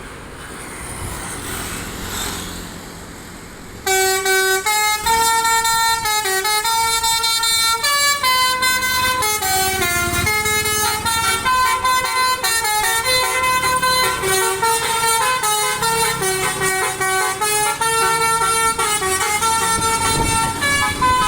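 Basuri 'telolet' multi-tone bus horn playing a tune: a long run of loud horn notes stepping up and down in pitch. It starts about four seconds in, after a few seconds of wind and traffic noise.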